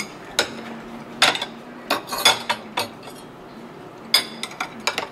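Metal table knife and fork clinking and scraping against a plate while cutting a braised chicken thigh: about ten sharp, irregular clinks and short scrapes.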